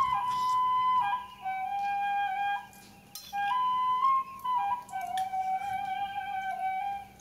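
Background music: a slow melody of long held notes that step up and down in pitch.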